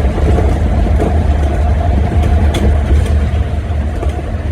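Steady road and engine noise inside a moving vehicle's cabin, dominated by a constant low drone.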